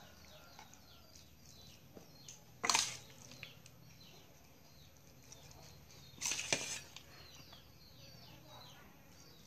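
Two brief scrapes, about three and six seconds in, as minced raw beef laab is scooped from a stainless steel bowl onto a plate. Faint, rapid bird chirping goes on behind them.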